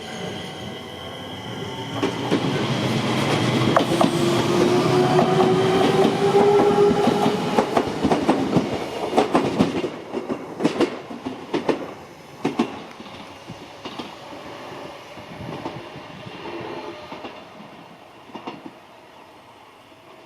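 Enshu Railway 2000-series electric train set passing, its motors giving a rising whine as it gets up speed. The wheels then clack over rail joints as it passes, and the sound fades away as it recedes.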